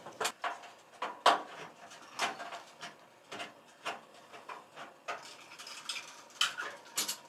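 Irregular metallic clicks, taps and knocks, a few sharper ones in the first couple of seconds and near the end: a screwdriver and hands working at a fluorescent light fixture's sheet-metal housing and ballast to free the ballast.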